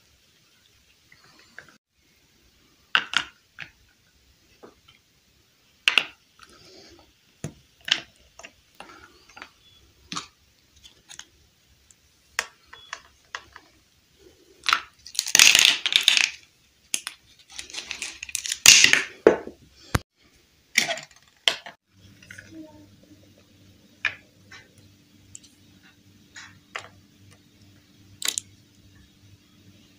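Small hard plastic toy furniture pieces being handled and set down on a hard surface: scattered light clicks and taps, with two louder rattling clatters of plastic pieces a little past the middle. A faint low hum runs under the last part.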